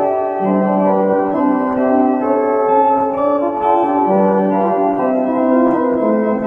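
Electronic keyboard played with an organ sound: sustained chords with a moving melody, the notes holding steady rather than dying away, and a low bass note held briefly twice.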